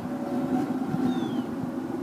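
Forced-air propane burner firing a scrap-aluminum melting furnace, running steadily with a low hum.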